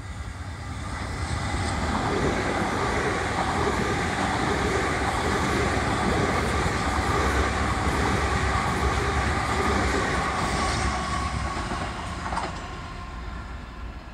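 South Western Railway electric multiple unit running past along the platform: wheels rumbling on the rails with a steady whine over them. It swells over the first couple of seconds, holds loud, and fades away near the end.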